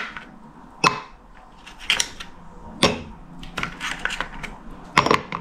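Ice cubes being pried out of a plastic ice cube tray and dropped into a glass mug: several separate sharp clinks and knocks, roughly a second apart, with two close together near the end.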